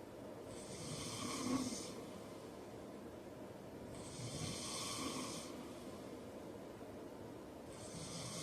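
A man snoring in his sleep: a steady rhythm of breaths about three and a half seconds apart, each a hissing rush of air with a low rasp. There are two full breaths, and a third begins near the end.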